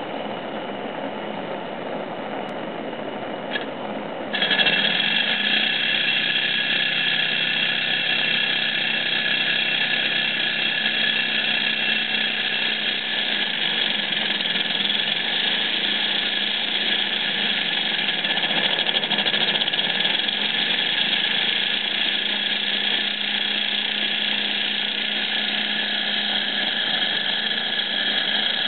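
Butane torch flame hissing against the hot cylinder of a small model Stirling engine, which runs fast and drives a miniature generator, with a steady high whine over the hiss. About four seconds in, the sound jumps suddenly louder and stays steady.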